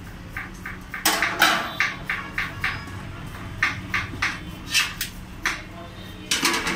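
Aluminium milk cans, lids and a small aluminium vessel clanking and knocking against each other as they are handled: a run of sharp metallic knocks, some ringing briefly, with a dense cluster near the end. A steady low hum runs underneath.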